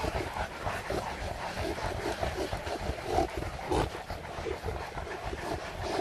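A large pack of St. Bernard dogs on the move, with short, scattered dog sounds over a steady low rumble.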